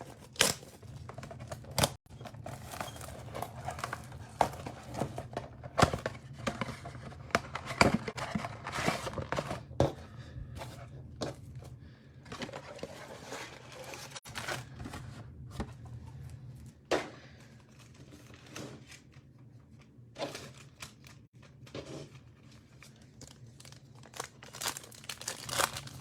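Plastic wrapping crinkling and tearing with sharp clicks and rustles as a trading-card box and its foil card packs are torn open.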